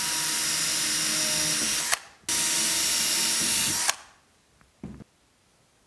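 Cordless drill running at a steady speed, pre-drilling a pilot hole into a wooden stud through the aluminium channel's countersunk mounting hole. It stops briefly about two seconds in, runs again, and stops just before four seconds, followed by a faint knock about a second later.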